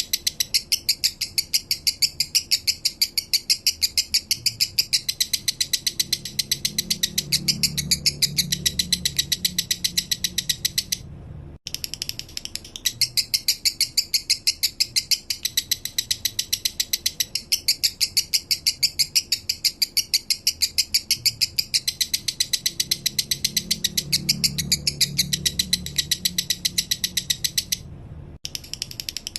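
Male lovebird singing a long, rapid 'minor' chattering song: an even run of sharp high chirps that breaks off briefly about eleven seconds in and again near the end.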